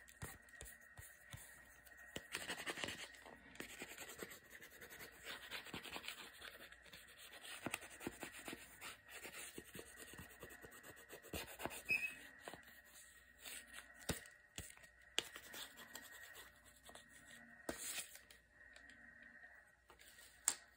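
A small blue eraser rubbed back and forth over a printed picture board: faint dry scratchy scrubbing, broken by occasional sharp little knocks as the board and eraser are moved.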